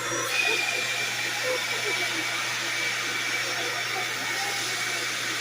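Vacuum cleaner running steadily: a constant high whine over a hiss of sucked air.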